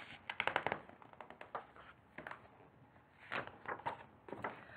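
Paper pages of a picture book rustling and crackling as a page is turned over, in several short bursts of crinkles.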